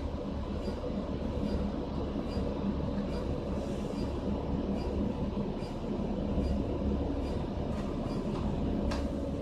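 Steady low rumble of a moving bus heard from inside, with faint regular ticks a little more than once a second and a short click near the end.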